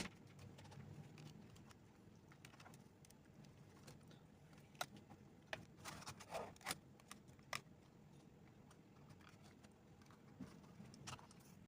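Near silence broken by a few faint clicks and light taps, mostly in the middle, from the plastic and metal parts of a mini PC being handled during disassembly.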